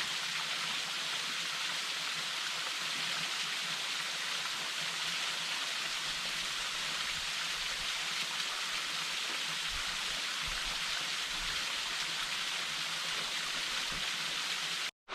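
Small waterfall splashing, a steady hiss of falling water close by; it cuts off abruptly near the end.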